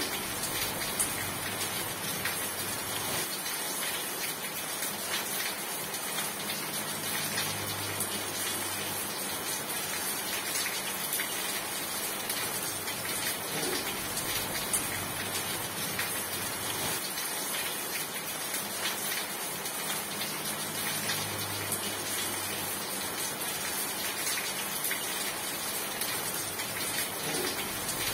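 Steady rainfall: an even rush of rain with many individual drops ticking on a surface throughout.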